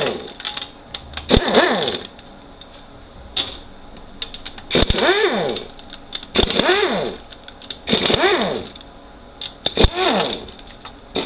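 Cordless impact gun running out the oil pan bolts on a Toyota U660E automatic transmission, in about six short bursts. In each burst the motor's pitch rises and then falls.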